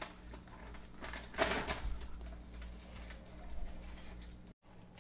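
Metal tongs handling grilled chicken legs on crinkled aluminium foil, with a short rustle about a second and a half in and a softer one later, over a low steady hum.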